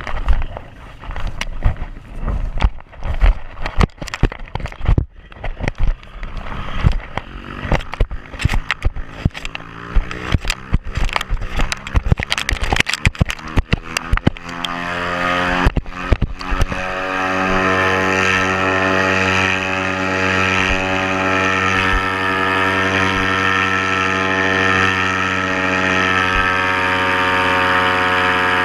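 Paramotor engine running under heavy wind buffeting on the microphone, its pitch climbing over the first half, then throttled up at about the halfway point to a steady, loud high-revving note.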